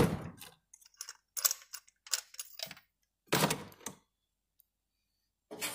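Metal socket and extension being pulled out of a spark plug hole and handled: a sharp click at the start, then scattered light metallic clinks and a longer scraping rattle about three and a half seconds in.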